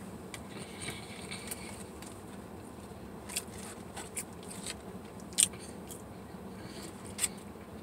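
A few short clicks and crinkles from hands handling a small packet, over a steady low hum inside the car.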